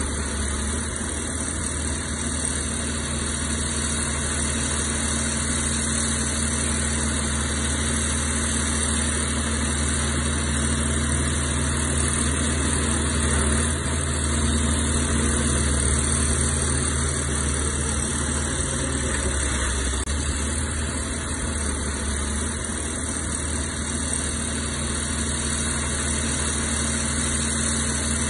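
Heavy earthmoving machinery's diesel engine running steadily with an even low hum, a little louder around the middle.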